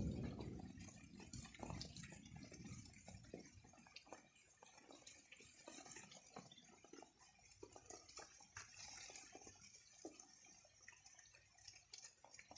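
Faint, irregular drips of rainwater, several a second, over a soft hiss. A low rumble dies away over the first two seconds.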